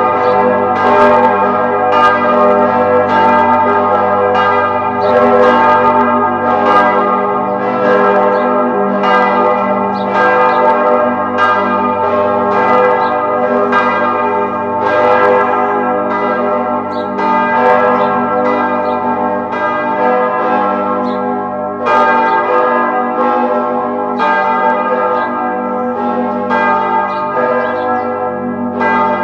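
Church bells ringing, a fresh stroke about every second, their tones overlapping and hanging on.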